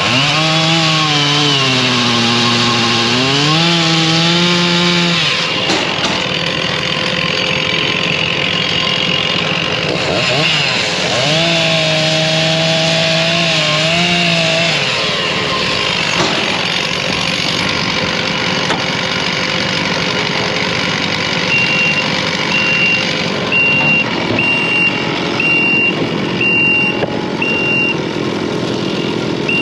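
Gasoline chainsaw cutting hedge (Osage orange) logs into firewood rounds, revving and changing pitch under load in two cuts, about 5 s and about 3 s long, over steady engine noise. In the second half a backup alarm beeps steadily, a little more than once a second.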